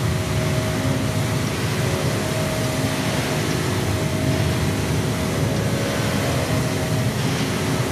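Steady, loud electronic noise drone from a live performance's sound score: a deep rumble and hiss with a few held tones.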